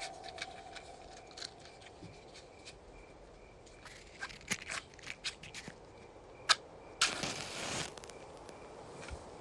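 Small scuffs and clicks, then about six and a half seconds in a sharp strike followed by a hiss lasting about a second: a match struck and flaring. Crickets chirp steadily underneath.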